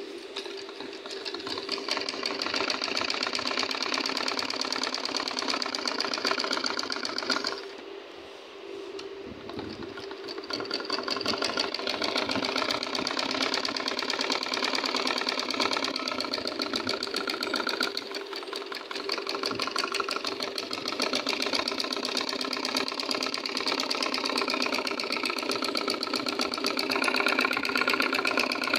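Domestic sewing machine stitching through cotton fabric in a fast, even run of stitches. It stops about eight seconds in and starts again a couple of seconds later.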